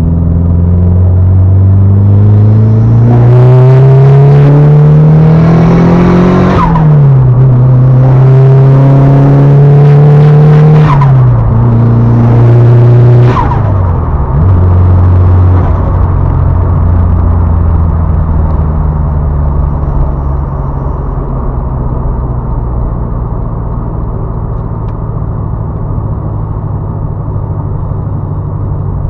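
Turbocharged four-cylinder car engine revved up three times and released, with turbo flutter on each throttle lift, then settling to a steady idle.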